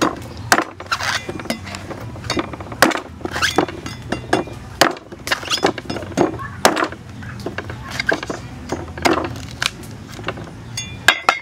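Cleaver chopping into the husk of a green coconut set on a wooden block: a series of sharp chops at an uneven pace, a little under two a second, with a quick run of sharper clicks just before the end.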